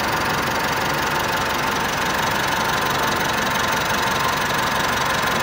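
Mitsubishi Pajero engine idling steadily at its normal idle speed, during the idle-learning procedure that follows a tune-up.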